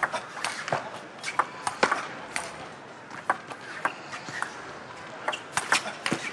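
Table tennis ball clicking off the rubber bats and the table during a fast rally, a quick, irregular series of sharp knocks over the steady murmur of an arena crowd.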